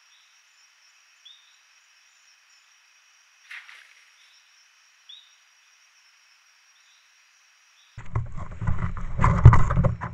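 Steady high trilling of insects with a few faint short chirps. About eight seconds in, a loud rustling and bumping right at the microphone takes over for the last two seconds.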